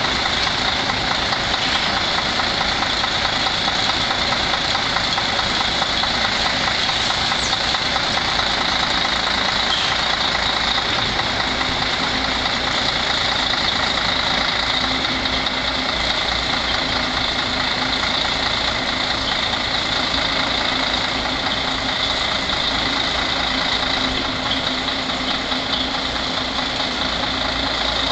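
MAN truck's diesel engine running steadily at low revs as the truck and drawbar trailer creep backwards at walking pace.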